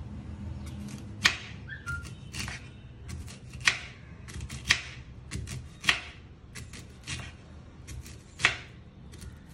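Kitchen knife slicing a star fruit on a bamboo cutting board, knocking on the board with each cut: five sharp knocks stand out, with lighter taps between.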